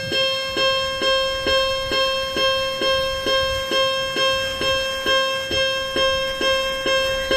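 Japanese railway level-crossing alarm sounding: an electronic bell strikes about twice a second, each strike ringing on.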